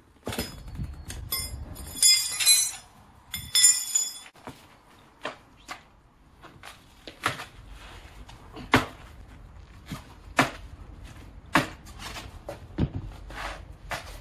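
Steel tyre levers clinking and ringing against a motorcycle's spoked rim as the last of the knobby tyre's bead is levered on. After that comes a string of separate dull knocks, about one every second or two, as the Yamaha DT200WR's rear wheel is handled and set down on a rubber mat.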